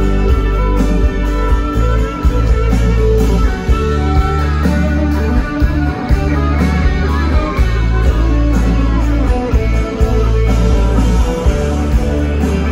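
Live rock band playing an instrumental passage, loud through the stage PA: acoustic and electric guitars, keyboard and a drum kit keeping a steady beat over a heavy bass.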